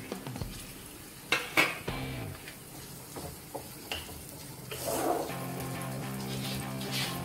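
Wooden spatula stirring and scraping sliced onion and capsicum around a nonstick frying pan of hot oil, with sharp knocks against the pan, the loudest a pair about a second and a half in. Background music plays underneath.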